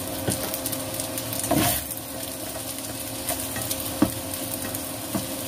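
Beef fried rice sizzling in a coated wok while a spatula stirs in sweet soy sauce, scraping through the rice, with a few sharp knocks of the spatula on the pan, the loudest about four seconds in.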